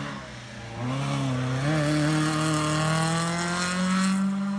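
Race car engine under hard acceleration, getting louder about a second in and then rising steadily in pitch for about three seconds.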